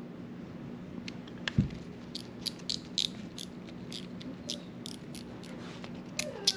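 A Shimano Chronarch C14 baitcasting reel being worked by hand after reassembly, giving light, sharp, regular clicks about three or four a second, with a single knock about a second and a half in.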